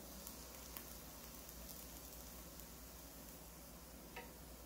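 Faint, steady sizzle of hotteok (sugar-filled sweet pancakes) frying in oil in a pan, with a few faint crackles.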